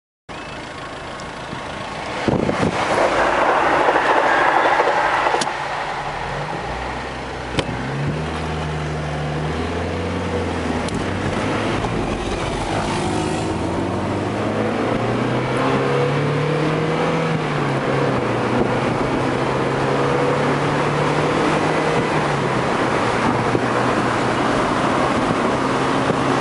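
Mazda MX-5's four-cylinder engine driving on a country road, rising and falling in pitch as it accelerates, over wind and road rush with the roof down. A loud rushing noise stands out from about two to five seconds in.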